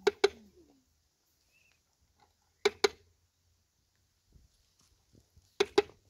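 Metal ladle knocked against the rim of a cooking pot, two quick ringing taps at a time, three times about three seconds apart, as food is ladled out.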